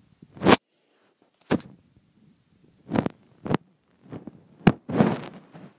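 Close handling noise: a series of sharp knocks and rubbing scrapes, about six in all, with a longer scrape near the end.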